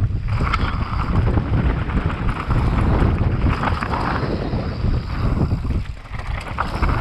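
Downhill mountain bike descending a bikepark trail at speed: steady rushing wind noise on the microphone over the low rumble of the ride, with scattered small clicks and rattles from the bike over rough ground.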